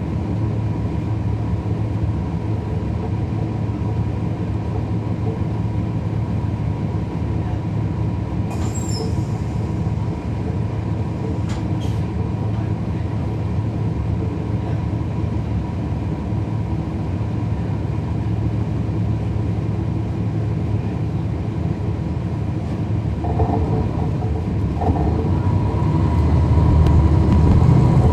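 Cabin sound from the rear of a 2011 NABI 416.15 transit bus in motion: its Cummins ISL9 diesel engine running steadily under the HVAC, with a steady whine over the low drone. The sound grows louder and deeper over the last few seconds as the engine takes more load, and there is a brief high-pitched sound about nine seconds in.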